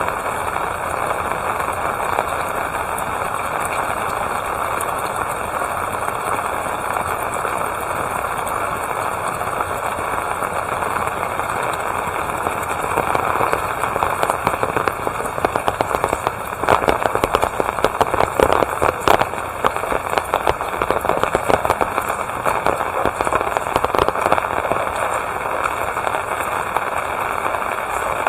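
Steady rain falling, a constant hiss. About halfway through, a dense patter of sharp drop impacts comes in and grows louder, then thins out again near the end.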